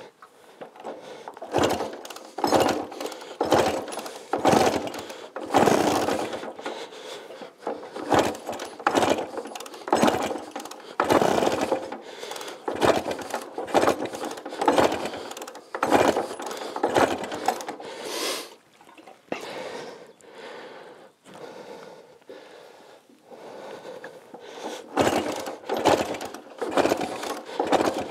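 A 1937 Scott 600 two-stroke twin being kicked over again and again without starting: a mechanical clatter with each kick, about one a second, a pause of a few seconds after the middle, then three more kicks near the end.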